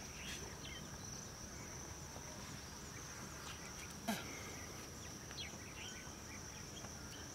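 Steady high-pitched insect chirring, like crickets, with a few faint short chirps over it and a single sharp click about four seconds in.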